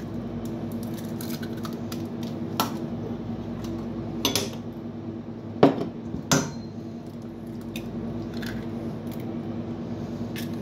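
Eggs being cracked on a stainless steel mixing bowl: a few sharp clicks and knocks of shell against metal, the loudest two close together about halfway through, over a steady low hum.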